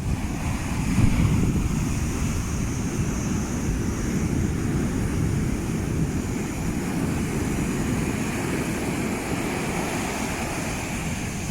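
Heavy ocean surf breaking and washing on a beach, a steady rush that swells a little about a second in, with wind buffeting the microphone.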